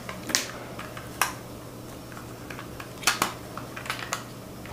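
A few light, separate plastic clicks and taps from handling a small toy RC car and its remote control, over a faint steady low hum.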